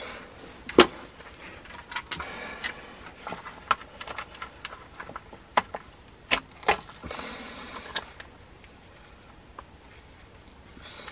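Gloved hands working a wooden snap trap on a gravel floor: sharp clicks and rattles from the trap's metal parts and knocks of its wooden base, the loudest about a second in and a close pair of clicks past the middle, with rustling and scraping of gloves in between.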